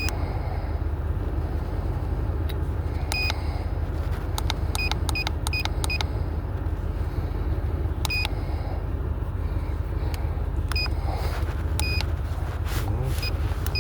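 Short electronic beeps from a handheld OBD-II code reader's keypad, one press at a time at irregular spacing, sometimes several in quick succession, over a steady low rumble.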